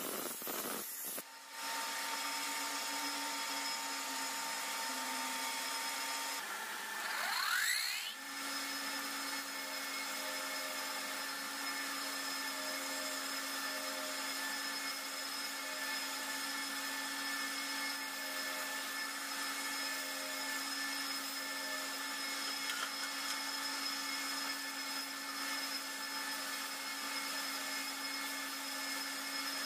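Shaft-mounted grinding wheel running with a steady hum while a steel knife blade is ground against it, giving a steady hiss. There is a brief rising whine about seven seconds in.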